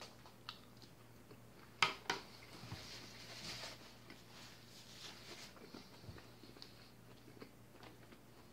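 A person quietly chewing a mouthful of leafy salad. Two sharp clicks come about two seconds in, followed by a soft rustle of a paper napkin being handled.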